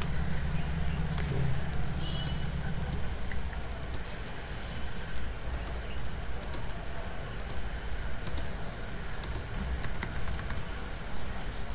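Irregular sharp clicks of a computer keyboard and mouse as points are dropped one by one along a line, over a steady low hum. A short, high falling chirp recurs every second or two.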